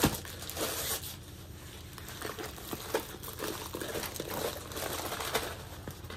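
Rolled diamond painting canvas in its plastic wrap being handled and unrolled, its stiff plastic and paper crinkling and crackling irregularly. There is a sharp knock at the start.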